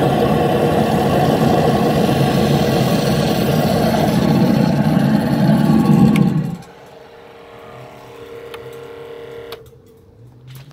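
Homemade turbojet engine running loud and steady, then dropping off suddenly about six and a half seconds in, leaving a much quieter steady hum that fades out near the end.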